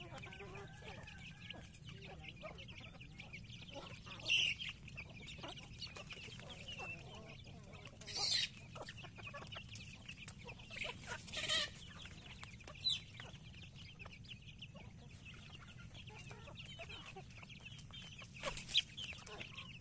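A flock of free-range village chickens, hens with their chicks, clucking and cheeping continuously while they feed. A few short, louder calls stand out about four, eight and eleven seconds in, and again near the end.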